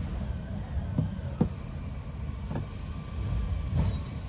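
Low, steady rumble with a few light knocks spread through it, from a plastic oil drain pan being handled under the car.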